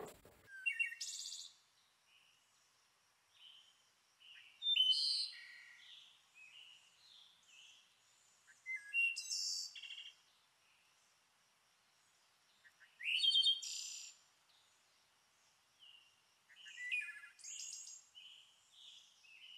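Birds singing: five short, quick phrases of high chirps and trills about four seconds apart, with fainter chirps between them.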